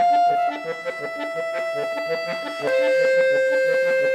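Concert accordion playing: long held treble notes that step down about half a second in and again near the middle, over a quick repeated staccato figure in the low register.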